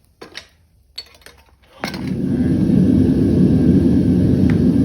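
A few sharp clicks, then about two seconds in a gas burner lights and settles into a loud, steady roar, heating the furnace to melt scrap copper for casting.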